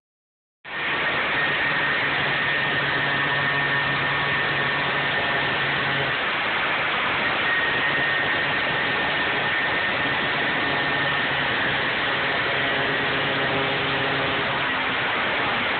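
Electric grinder running steadily as it cuts through a padlock's metal shackle, a constant loud rush of noise with a faint high whine, starting abruptly under a second in.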